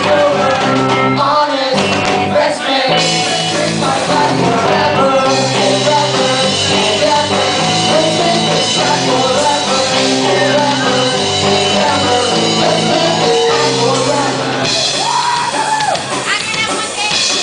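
Live rock music with singing: a band plays held chords that change every second or so, with a voice singing over them.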